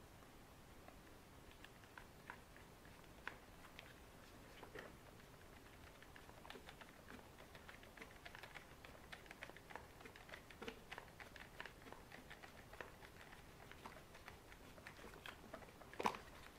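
Faint, irregular small clicks and ticks of small bolts being fitted and tightened into an RC car's plastic parts. The clicks come more often from about six seconds in, with one sharper click near the end.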